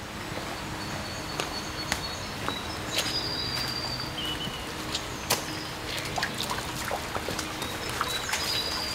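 Woodland ambience: small birds chirping in short high whistles over a steady rushing background, with scattered sharp clicks and crunches.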